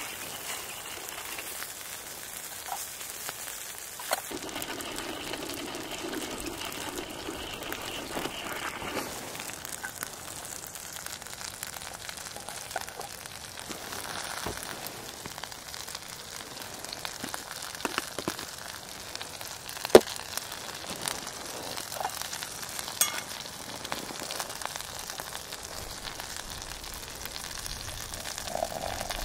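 Sausages sizzling and spitting on a hot cast-iron griddle over a wood fire, a steady frying hiss with scattered pops and crackles. One sharp crack stands out about two-thirds of the way through.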